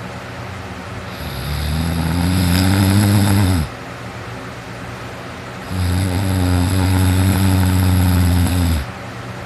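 A teenager snoring heavily while asleep on his back: two long, low, rattling snores of about three seconds each, with a quieter breath-length pause between them.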